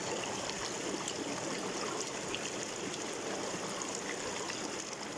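Spring water gushing out from beneath a boulder and rushing steadily over stones close to the microphone.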